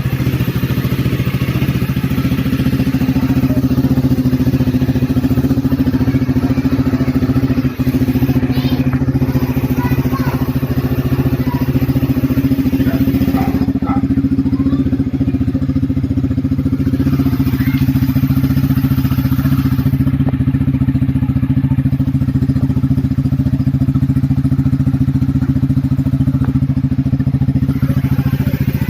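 Honda RS150 motorcycle's single-cylinder four-stroke engine idling steadily through an aftermarket Reborn exhaust canister, the note holding at an even pitch.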